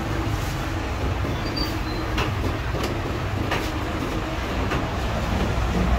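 Steady low rumble of busy street background noise, with a handful of sharp clicks and knocks at irregular spacing in the middle.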